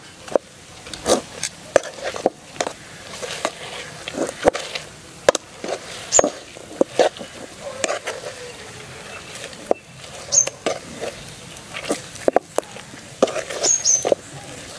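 A metal spatula scrapes and knocks irregularly against a metal pan while stirring a thick, stiff adhirasam dough.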